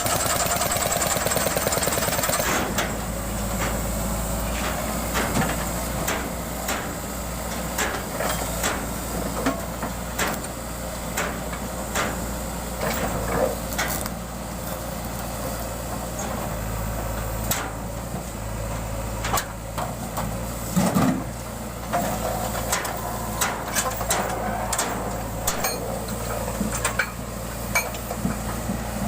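Construction-site noise: an engine running steadily at idle, with irregular sharp knocks like hammering or stones being struck.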